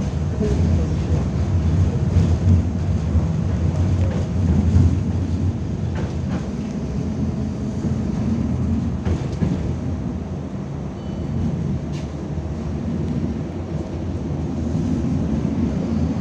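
Tatra T6A5 tram riding along the track, heard from inside the passenger cabin: a steady low rumble of wheels and running gear, a faint steady whine, and a few faint clicks.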